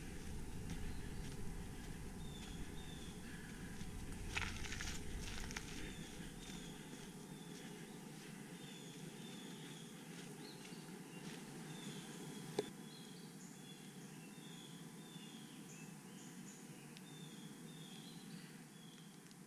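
A songbird sings a long series of short, falling whistled notes, repeated in twos and threes. Footsteps rustle on the forest floor in the first several seconds, and a single sharp click comes past the middle.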